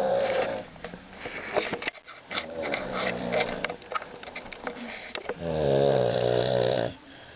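A sleeping person snoring: a long, loud, rough snore at the start and another from about five and a half to seven seconds in. Between them come quieter rattling, clicking breath noises.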